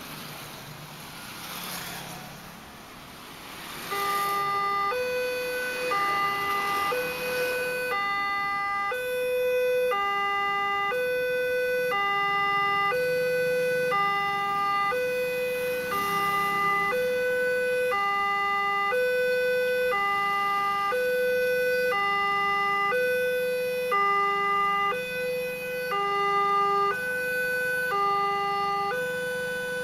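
Railway level-crossing warning alarm sounding an electronic two-tone high–low chime, repeating steadily from about four seconds in: the signal that a train is approaching and the barrier is coming down. Motorcycles pass by before it starts.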